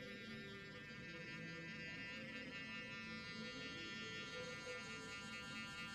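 Faint steady electric buzz of a sonic facial cleansing brush, dipping briefly in pitch a couple of seconds in, under soft background music.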